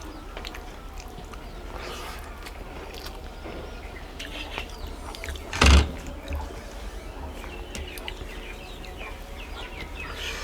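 Small birds chirping in the background, with one loud sharp knock a little over halfway through.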